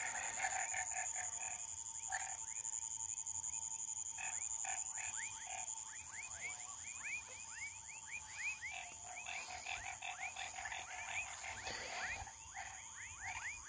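A chorus of frogs calling: many short calls, each falling in pitch, overlapping at several a second, with a steady high-pitched drone behind.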